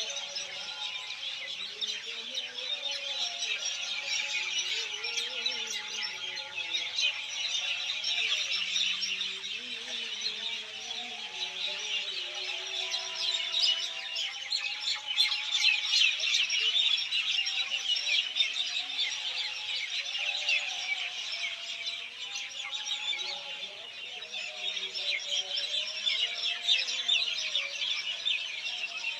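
A dense chorus of many small birds chirping and calling over one another, steady and unbroken.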